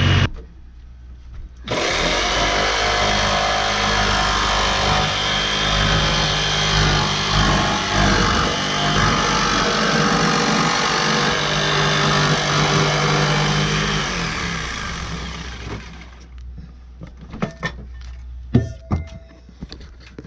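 Jigsaw cutting through the ambulance's thick roof to make the opening for a vent fan: the saw runs loud and steady for about twelve seconds after a brief lull at the start, then dies away. Near the end come a few sharp knocks and clatters.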